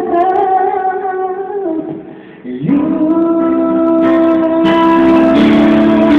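A man singing a slow ballad into a microphone over backing music. He holds one long note, breaks off briefly about two seconds in, then holds another long note that steps in pitch near the end.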